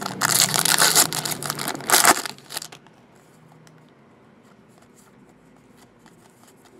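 A foil trading-card pack wrapper being torn open and crinkled for about two and a half seconds. Then the cards inside are flipped through with only faint soft ticks.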